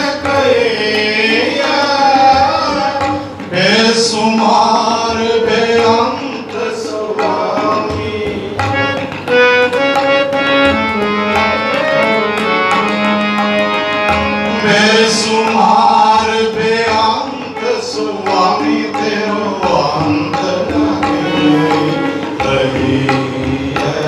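Sikh kirtan: a man sings a hymn to his own harmonium accompaniment, with tabla drums keeping the rhythm.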